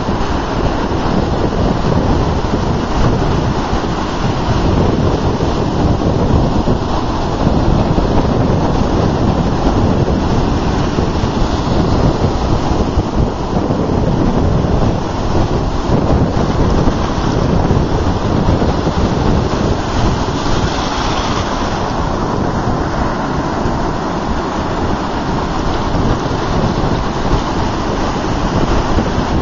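Ocean surf breaking and washing up the beach in a steady rush that swells and eases, with wind buffeting the microphone.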